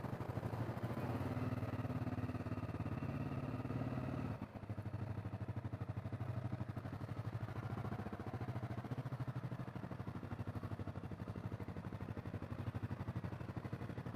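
Honda CRF250L's single-cylinder engine running steadily under way, with a brief dip in level about four and a half seconds in.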